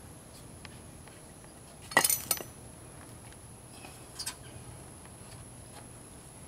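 Metal-on-metal clinks of tools and hardware against a steel bumper during fitting: a quick run of sharp clinks about two seconds in, and a fainter pair of clinks around four seconds.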